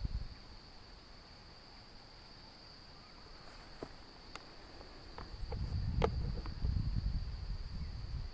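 Insects, cricket-like, chirring as a steady high-pitched trill. A few sharp clicks sound in the middle, and a low rumble comes in about two-thirds of the way through and is the loudest thing from then on.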